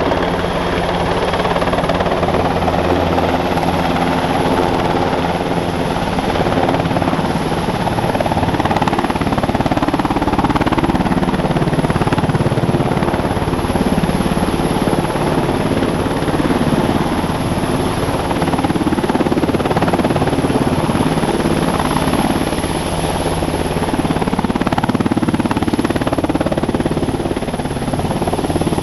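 NH90 military helicopter, with its two Rolls-Royce Turbomeca RTM322 turboshaft engines, descending and hovering just above the ground to land: a loud, steady rotor and turbine noise with a thin high-pitched whine running under it.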